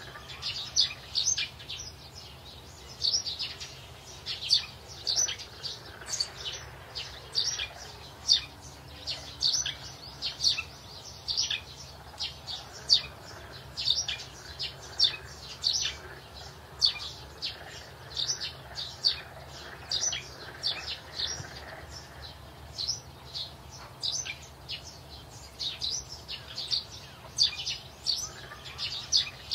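A bird chirping over and over, short high chirps coming about one or two a second.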